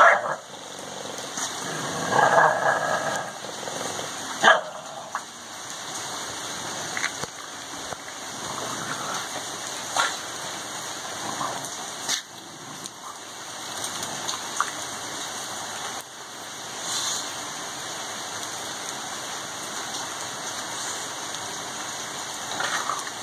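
English bulldog growling while tugging hard at a toy tied to a Jeep's hitch, loudest in the first few seconds, with a few sharp knocks. A steady patter of rain runs underneath.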